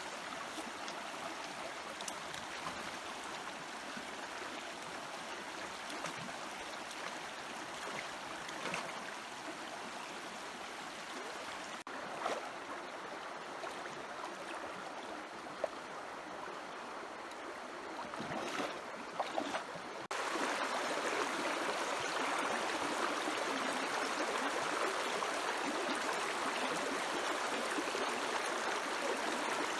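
Stream water running steadily, with a few brief sharp sounds about two-thirds in; the water becomes suddenly louder and brighter soon after.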